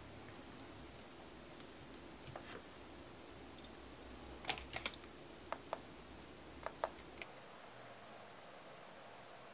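Light tapping and sharp plastic clicks as long acrylic nails knock against a plastic nail-art stamper while it is handled and pressed onto a nail. A quick run of the loudest clicks comes about halfway through, with a few fainter taps before and after.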